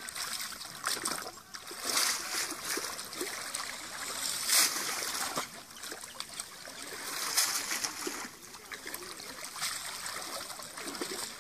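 Shallow, muddy water splashing and sloshing as a man wades along the edge and drags a fishing net through it, with louder splashes about two, four and a half, and seven seconds in.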